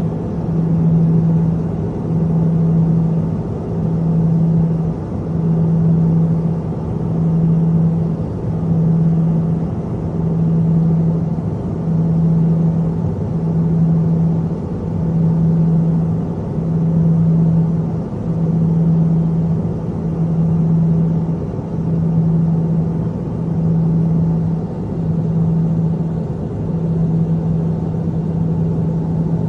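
Cabin drone of a Piper Cheyenne's twin turboprop engines and propellers in flight: a steady low hum with a tone that swells and fades about every two seconds. This is the beat of the two propellers turning at slightly different speeds.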